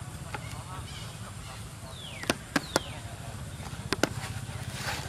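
Macaque calls: two short, high squeals that fall steeply in pitch about two seconds in, among several sharp clicks and a steady low rumble.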